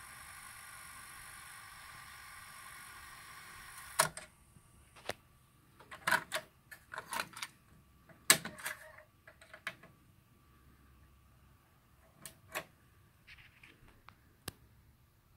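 Nakamichi Cassette Deck 1 rewinding tape with a steady whir, which stops with a loud mechanical clunk about four seconds in. Then a run of plastic clicks and clacks as the cassette is ejected and handled, with a few more clicks near the end.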